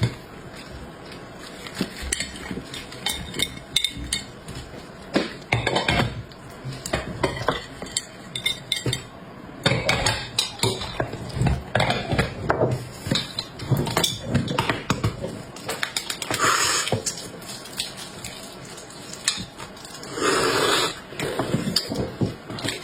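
Kitchen utensils and dishes clinking and knocking in an irregular clatter, with two longer noisy sounds in the second half.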